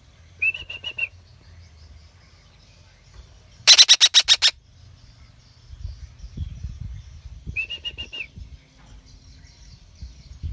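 Young betet parakeet calling in rapid harsh squawks. A short run comes about half a second in, then the loudest part: seven shrill screeches in quick succession around four seconds in. Another short run follows near eight seconds.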